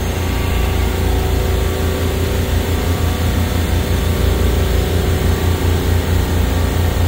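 Supermarket refrigeration compressor rack running: a loud, steady machine hum with a strong low drone.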